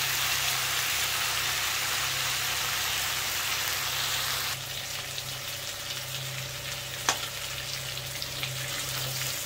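Cubed potato and cauliflower frying in mustard oil in a kadhai, a steady sizzle that turns a little quieter about halfway through. One sharp clink of the metal stirring utensil against the pan comes near the end.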